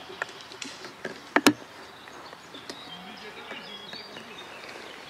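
Woodland ambience with small birds chirping. Two sharp knocks come close together about a second and a half in, with a few fainter clicks near the start.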